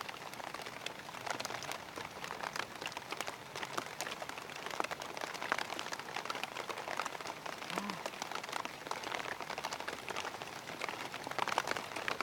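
Rain falling steadily, a dense patter of many small drop impacts.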